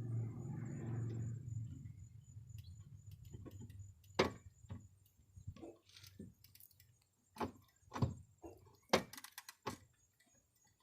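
Sharp metallic clicks and clacks from a long-handled hand rivet gun being worked on a door-handle rivet, coming singly and irregularly from about four seconds in, the loudest near four and nine seconds. A low hum runs through the first two seconds.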